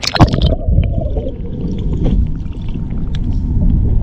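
Pool water splashing as it closes over a waterproof camera at the start, then a steady muffled low rumble and gurgle of water heard through the submerged camera.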